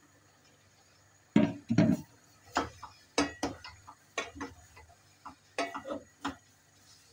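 Wooden spoon knocking and scraping against a stainless steel pot while sliced mushrooms are stirred in it: a string of irregular knocks starting about a second and a half in.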